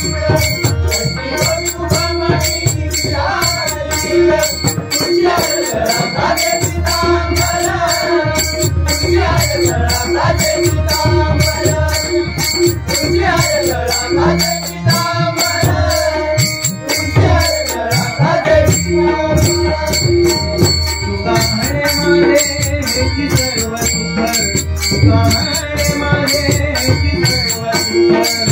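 Devotional bhajan music in raga Bhupeshwari: pakhawaj and tabla drumming under a fast, even jingling of small hand cymbals, with a gliding melodic line over it.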